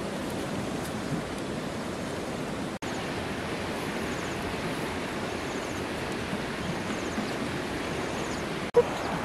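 Steady rushing outdoor background noise, with no distinct events, cutting out for an instant twice.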